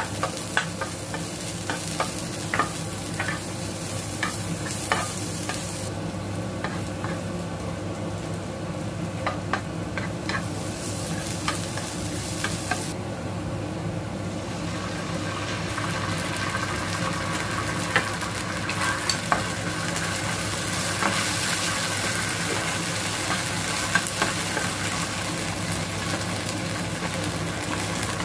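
Diced onion, garlic and fermented black beans sizzling in hot oil in a nonstick pan, with a wooden spoon stirring and tapping against the pan in many short clicks. The sizzle grows stronger about halfway through, after chili bean sauce goes in.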